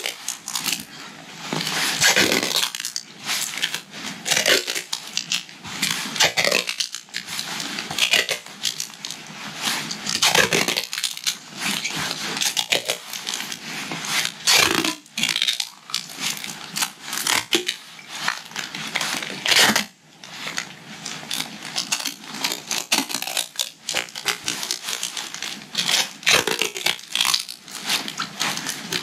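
Tape being pulled off the roll in a series of irregular rips and crackles and wrapped round a pack strap, with handling rustle in between.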